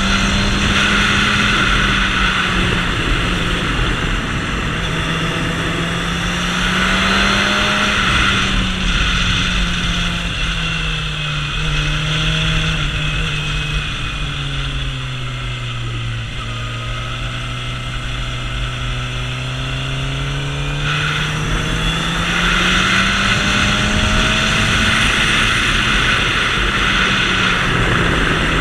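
Suzuki GSX-R750 inline-four engine running on the move, its pitch rising and falling with the throttle through the bends. The pitch sinks lowest around the middle, then climbs again. A rush of wind runs over it, strongest at the start and the end.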